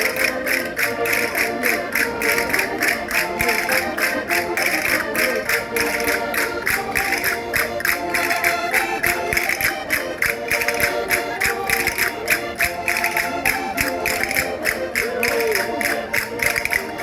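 Concertinas playing a dance tune in sustained chords, over a fast, steady percussive beat.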